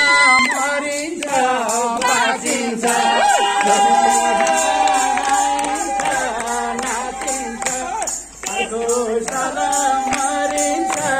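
A man singing a song into a handheld microphone over music with a steady percussion beat.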